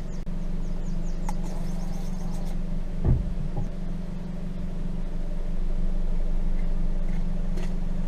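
Car engine running with a steady low hum, with one thump about three seconds in.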